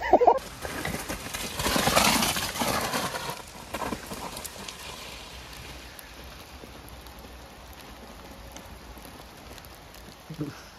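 Mountain bike setting off down a steep, muddy, leaf-covered trail, its tyres skidding and rattling loudly for the first few seconds before fading as the rider pulls away, then a steady hiss of rain.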